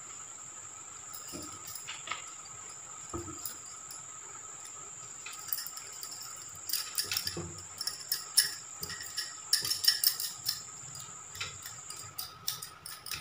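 Stainless steel idli mould plates clinking and tapping lightly as oil is rubbed into the cups by hand. The clicks are sparse at first, then come thick and fast from about halfway through. A faint, steady high-pitched whine sounds under them and stops near the end.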